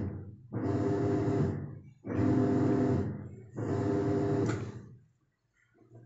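Whirlpool Stainwash Ultra top-load washing machine running its self-diagnostic test: the wash motor runs in three bursts of about a second each with short pauses between, agitating the water in the tub.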